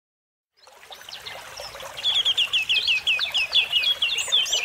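Birds chirping: a brief silence, then a fade-in, and from about halfway through many rapid short high chirps over a steady hiss.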